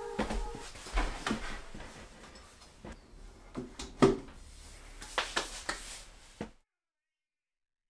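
Light knocks and clatter of a laptop on its stand being set down and shifted on a wooden desktop storage rack, the loudest knock about four seconds in. The sound cuts off to dead silence about six and a half seconds in.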